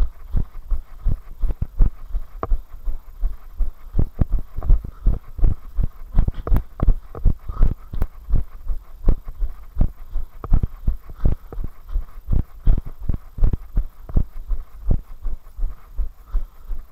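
A runner's footfalls on a packed dirt path, heard as steady low thuds about three a second, as the body-worn camera jolts with each stride.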